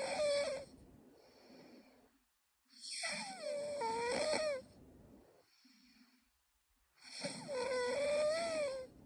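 A young woman snoring in her sleep: one snore ends under a second in, then two more full snores about four seconds apart. Each snore lasts about two seconds and carries a wavering, fairly high-pitched tone, with softer breaths between them.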